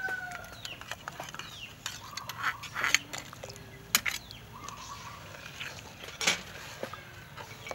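Metal spoon and ladle clinking and scraping against an aluminium cooking pot as sauce is poured into the broth and stirred, a series of irregular knocks with the sharpest about four and six seconds in.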